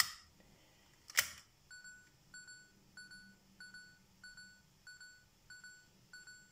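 A sharp click about a second in from the old tape camcorder's cassette mechanism, then the camcorder beeping, eight short even beeps at about one and a half a second: it is refusing the cassette.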